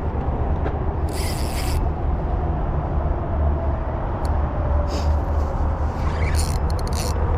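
Spinning reel's drag buzzing in short spurts, three times, as a hooked carp pulls line. Under it runs a steady low rumble.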